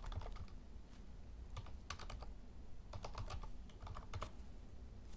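Computer keyboard typing in four short runs of keystrokes with pauses between them. The typing stops a little after four seconds in.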